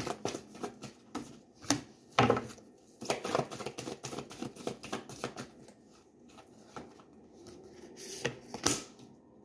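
A deck of tarot cards shuffled by hand: cards slapping and clicking against one another in an uneven patter, with a few sharper knocks.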